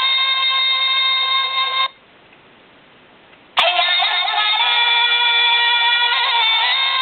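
Alarm clock playing a recorded melody through its speaker. The melody cuts off about two seconds in, a short click follows about a second and a half later, and the melody starts again.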